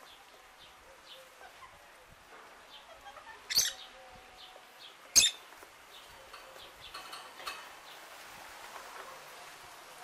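African grey parrot giving two short, sharp, high calls, about three and a half and five seconds in, amid faint scattered chirps.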